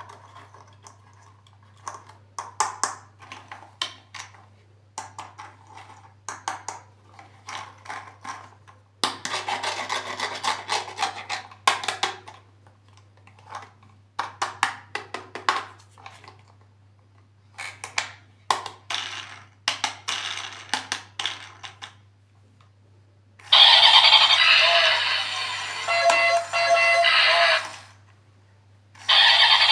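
Plastic toy packaging and parts being handled: scattered clicks and taps, with a few seconds of crinkling. About three quarters of the way in comes a loud, dense rush of sound with a few steady tones in it, lasting about four seconds, and it starts again at the very end.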